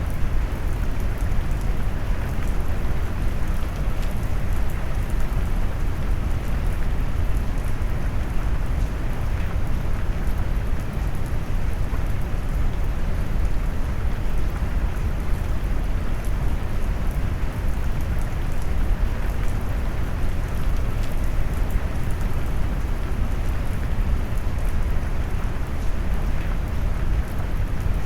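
Steady rain mixed with brown noise: a dense, even rumbling hiss weighted toward the low end, unchanging throughout.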